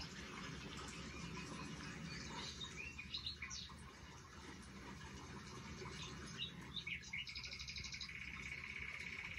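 Bird chirping: a few short chirps, then a long rapid trill near the end, over a faint steady background hum.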